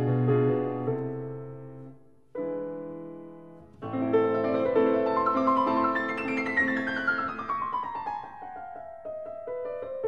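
Background piano music: a phrase dies away about two seconds in, a single chord rings and fades, then the playing resumes with a long descending run of notes.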